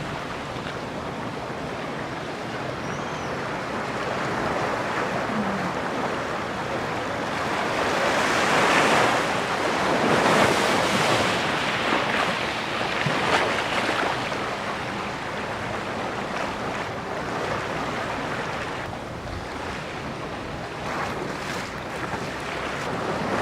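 Ocean surf breaking and washing up the beach, swelling louder for several seconds in the middle and then easing off.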